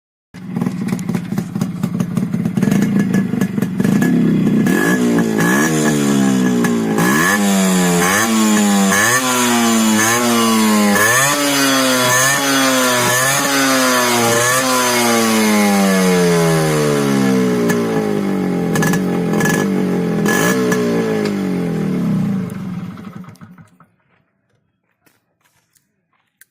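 Motorcycle engine revving hard, its pitch climbing and snapping back down about once a second in repeated throttle blips, then sinking slowly before dying away near the end.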